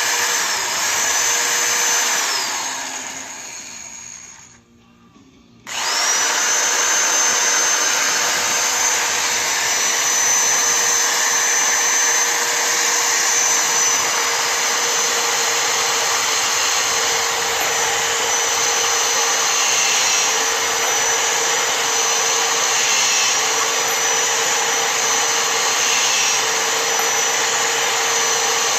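Old electric drill spinning a number 10 reamer that cuts the military crimp out of rifle-case primer pockets. It runs with a steady high whine, spins down and stops about three to five seconds in, then starts again about six seconds in and runs on, its pitch dipping briefly now and then.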